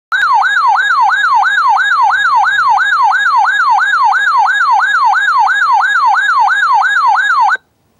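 Electronic emergency-alert siren tone, a loud warble sweeping quickly up and down about three times a second, that cuts off abruptly near the end. It is the alert for a tornado warning.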